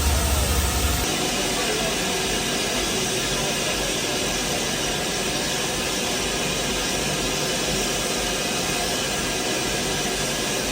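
Steady hiss of a steam locomotive letting off steam, with a low rumble underneath that stops about a second in.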